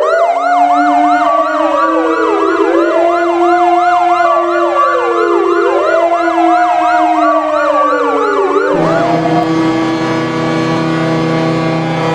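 Hockey goal horn: a steady horn tone mixed with sirens, a slow wail rising and falling about every three seconds over a fast yelping siren. About nine seconds in, the sirens stop and sustained music chords take over.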